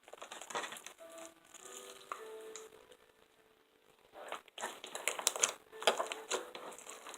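Homemade slime being squished and stretched by hand, giving short wet crackles and clicks, broken by a pause of about a second and a half in the middle. Faint steady tones sound briefly about a second in.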